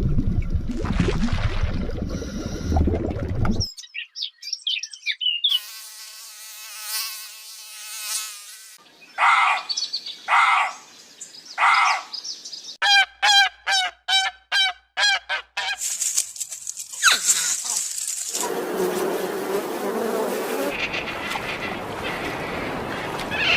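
A string of short animal-sound clips cut one after another: buzzing like insects, and bird calls like fowl or geese, including three separate calls and then a quick run of repeated calls.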